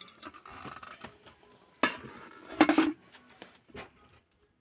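Kitchen utensils and pots being handled: a few scattered clinks and knocks, the loudest about two seconds in and again shortly after.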